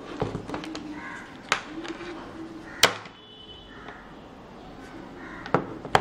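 Plastic laptop charging adapter and its power cord handled on a wooden table, giving a few sharp clicks and knocks: one about a second and a half in, the loudest just before three seconds, and two close together near the end.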